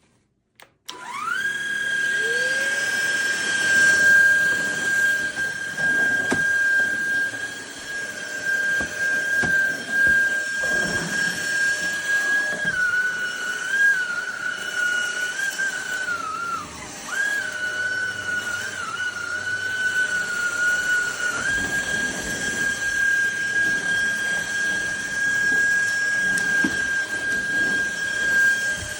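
SMOTURE cordless stick vacuum's motor switching on and spinning up within a second to a steady high whine. About halfway through, the whine's pitch sags and wavers for several seconds, then settles back to steady.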